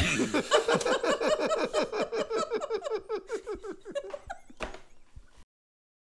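Laughter: a rapid, even run of 'ha-ha' pulses that slowly fades, then cuts off abruptly to silence about five and a half seconds in.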